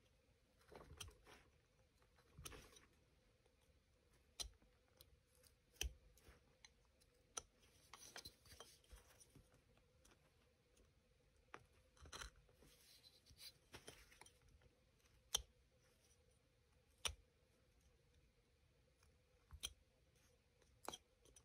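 Faint, scattered slicing and scraping of a carving knife taking small cuts in a basswood figure, with light clicks between the strokes.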